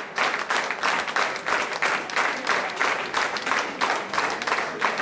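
Concert audience applauding, the clapping falling into a steady rhythm of about three claps a second.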